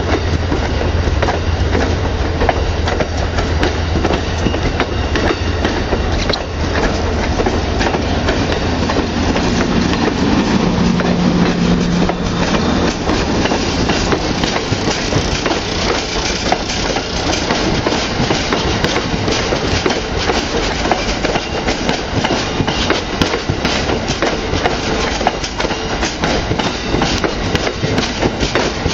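Amtrak stainless-steel passenger cars rolling past close by: a steady, loud rumble with wheels clicking on the rails. A low hum fades out about nine seconds in, and a brief higher tone follows.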